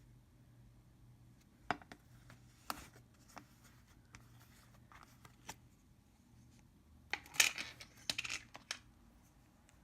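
A taped plastic slime container being unwrapped and opened: scattered light clicks and taps, then a burst of crackling and tearing about seven seconds in, the loudest part.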